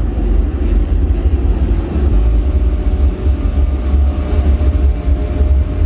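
Loud, steady low rumble of heavy military engines, with a faint whine coming in during the second half.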